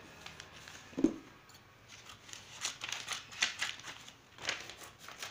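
Large tailor's shears snipping through satin fabric: a series of short, crisp cuts with the cloth rustling, after a soft thump about a second in.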